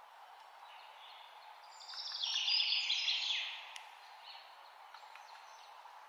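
Steady rain falling, with a bird singing a rapid, high twittering phrase for about two seconds in the middle, which is the loudest sound.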